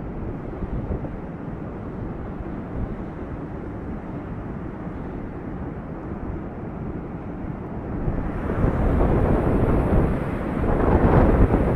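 Low rushing noise of flash-flood water with wind buffeting the microphone, growing louder about eight seconds in.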